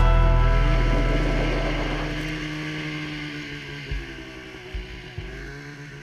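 Two-stroke snowmobile engine running as the sled rides along, the sound fading steadily away, with a few dull thumps about four and five seconds in.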